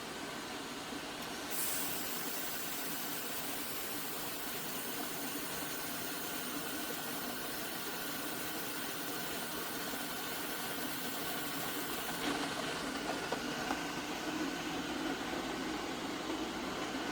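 Air-cooled handheld laser welder running, its cooling fans giving a steady hum. About a second and a half in, a high hiss starts as the torch fires and lays a wire-fed weld on stainless steel, and it cuts off abruptly about twelve seconds in.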